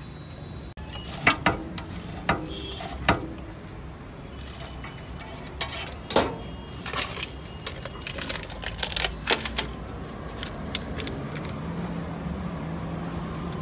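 A metal spatula clanking and scraping on a large iron tawa while aloo tikkis are turned and broken up, in a string of sharp metallic clicks and knocks: a few around the first three seconds, then a denser run in the middle.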